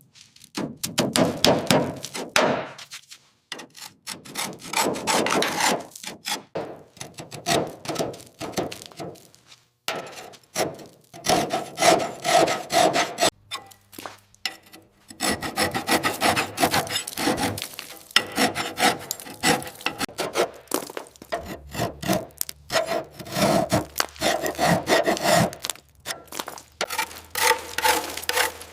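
Rough scraping strokes from a hand tool working a heavily corroded panel, coming in stop-start bouts separated by short pauses.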